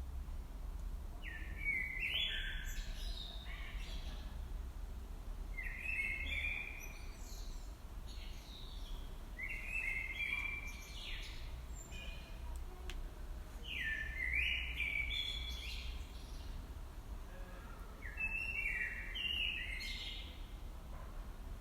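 A songbird sings the same short phrase five times, about every four seconds, each phrase a quick run of notes lasting around a second and a half. Under it runs a steady low rumble.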